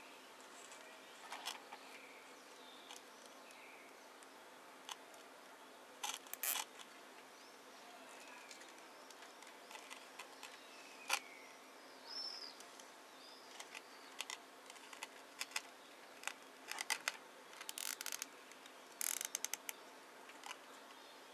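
Plastic cable ties being pulled tight through their ratchets, heard as sharp clicks and short runs of rapid clicks, loudest in two runs near the end, with light handling rustles. Faint bird chirps come now and then in the background.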